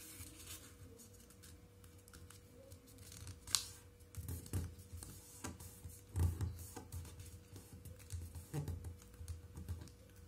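Square of origami paper being folded and its creases pressed flat by hand on a stone tabletop: soft irregular rustling, taps and knocks, with one sharp click about three and a half seconds in, over a faint steady hum.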